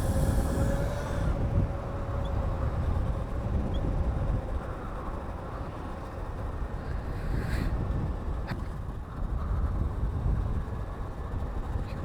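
Wind rumbling on the microphone while riding a modded electric Razor bike, with a faint steady motor whine that fades within the first few seconds. A short hiss and a click come about two thirds of the way through.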